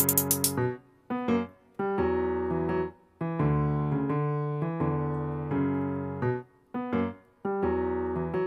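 Piano background music: held keyboard chords in short phrases with brief pauses between them. A quick run of sharp clicks sounds in the first half second.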